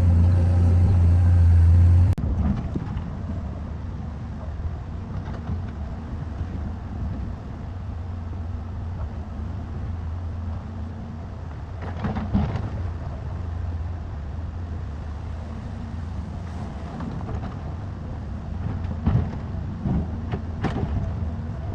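Excavator diesel engine running steadily, with a few sharp metallic clanks and knocks. It is loud for about the first two seconds, then drops suddenly to a lower rumble.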